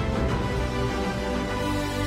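Background music: held notes changing over a heavy bass.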